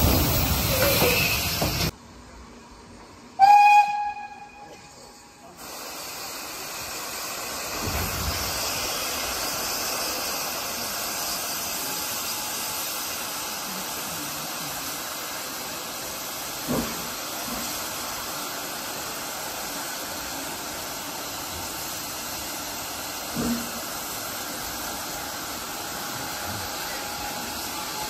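Steam hissing loudly as a saddle-tank steam locomotive passes close alongside, then a cut and a short, loud steam whistle blast about three seconds in. After that comes the steady running noise of a steam-hauled train heard from an open carriage window, with two brief knocks.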